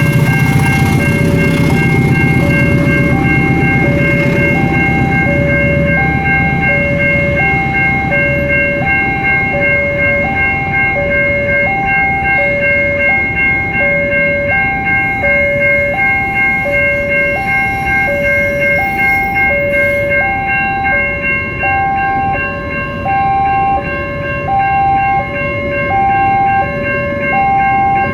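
Railway level crossing warning sirens sounding continuously: a two-tone alarm alternating high and low about once a second, over steady high-pitched tones. A low rumble fades during the first few seconds.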